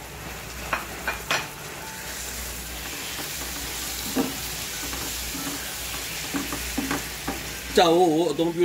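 Pieces of catfish frying in hot oil in a pan, sizzling steadily and growing louder as they are stirred with a wooden spatula. The spatula gives a few light knocks against the pan about a second in and again around four seconds.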